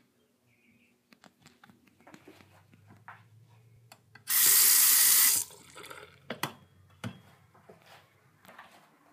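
A two-handle chrome bathroom sink faucet is turned on, and water runs loudly into the basin for about a second before it is shut off. Scattered faint clicks and a couple of sharper knocks come before and after.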